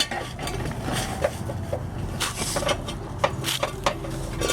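Scattered knocks and clicks of a jack and jack stands being handled under a truck, over a steady low hum.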